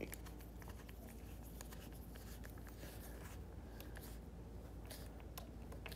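Faint scattered clicks and scratches of hand work on snowboard binding hardware, a screw being turned in with a screwdriver, over a steady low hum.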